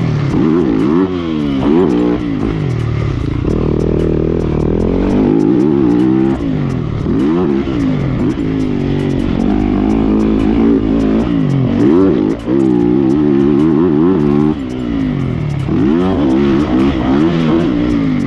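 Yamaha motocross bike's engine heard from the rider's position, revving up and falling off again and again as the throttle is worked, with a brief sharp drop about twelve seconds in.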